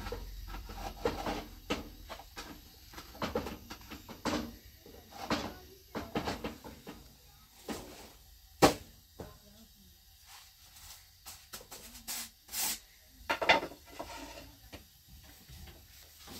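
Flatbread being made by hand: a thin wooden rolling pin knocking and rolling on a small wooden board, and thin dough sheets lifted and turned on a domed metal griddle with a wooden stick. Irregular taps and rubs, with one sharp knock a little past halfway.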